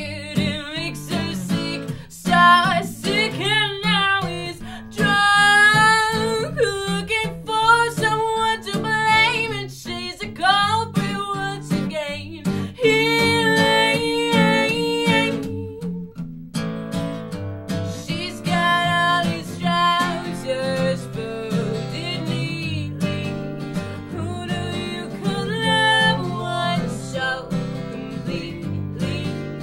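Acoustic guitar accompanying a woman singing a slow song, with a brief pause about halfway through before the guitar carries on.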